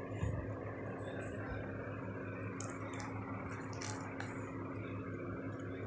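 Steady low background hum, with a soft knock early on and a few short rustles and clicks between about two and a half and four seconds in, from the plastic light fitting and its cardboard packaging being handled.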